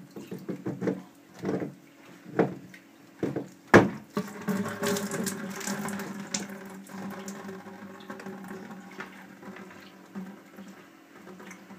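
Water pouring out of an unscrewed reverse osmosis filter housing into a plastic bucket, starting about four seconds in and slowly tapering off. Before it, a few knocks from handling the plastic housing, one louder knock just before the water starts.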